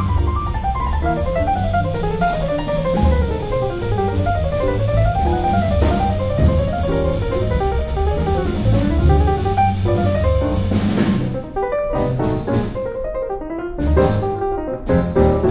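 Jazz piano trio playing: fast runs on a grand piano over double bass and a drum kit with cymbals. About eleven seconds in the cymbals swell and then stop, leaving piano and bass alone for a moment before the drums come back in near the end.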